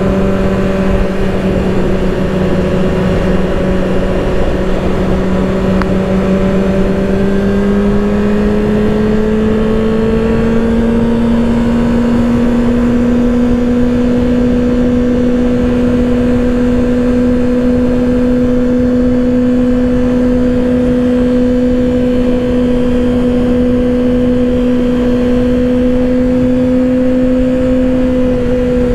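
2024 Kawasaki Ninja ZX-6R's inline-four engine running steadily under way, its pitch rising gently about a third of the way in and then holding level, over a constant rush of wind noise.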